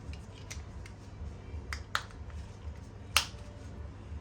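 Sharp plastic clicks from a Suzuki remote key fob being handled and snapped back together after its battery change, a few separate clicks with the loudest just after three seconds in.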